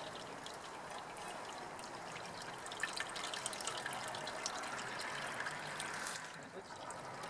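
Wort trickling and dripping from a squeezed brew-in-a-bag grain bag into the kettle below. The flow runs harder for about three seconds in the middle, while a stainless pot lid is pressed down on the bag to force out more liquid, then eases back to a trickle.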